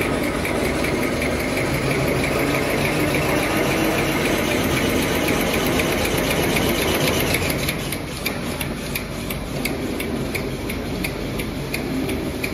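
Kitchen-towel converting machine running, unwinding a parent roll of spunlace nonwoven fabric: a steady mechanical hum with fast, even ticking. It drops a little in level about eight seconds in.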